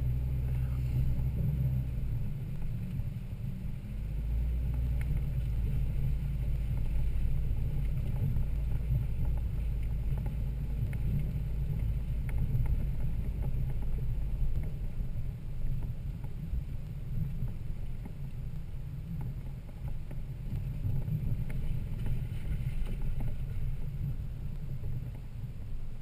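Low, steady rumble of a Toyota Land Cruiser 80 Series driving slowly along a rough off-road trail, with a few faint ticks over it; the deepest part of the rumble eases about halfway through.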